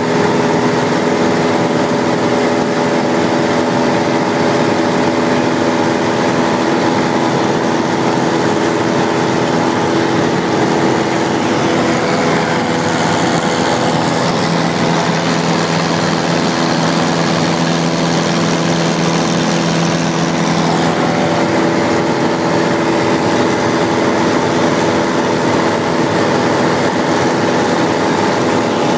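Cessna 172 piston engine and propeller running steadily in flight, heard as a loud drone inside the cabin. The tone changes slightly for several seconds midway, then settles back.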